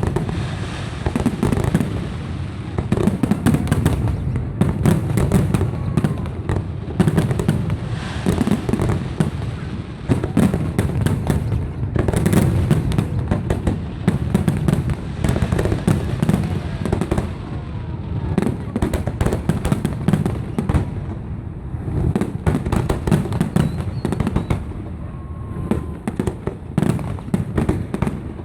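Large fireworks display: a dense, continuous barrage of booming bursts and sharp crackles, many per second.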